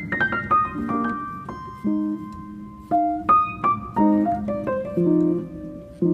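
Background piano music: a melody of quick single notes over lower held chord notes.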